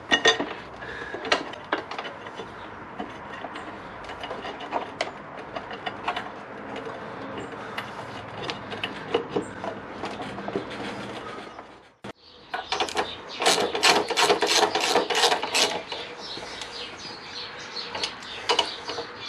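Parts being handled with scattered light knocks and clicks, then, about halfway through, a socket ratchet wrench clicking in a quick, even run as a bolt is driven in.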